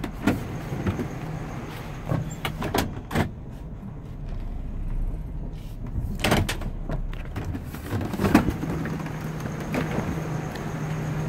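A work van's door being opened and shut as someone climbs out: a string of clicks and clunks, the loudest thump about eight seconds in. The van's engine idles as a low steady hum underneath.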